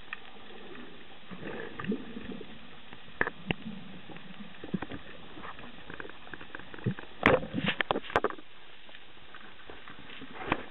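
Underwater sound picked up by a diving camera: a steady hiss with scattered small clicks and knocks, and a quick cluster of louder knocks about seven seconds in.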